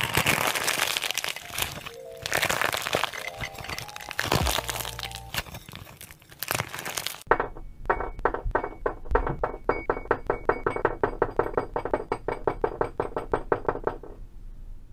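Crumbly pink block crunching and crackling as it is squeezed and crushed by hand. About seven seconds in, it changes to soft marbled clay balls dropped one after another into a glass goblet, each landing with a knock, about four a second.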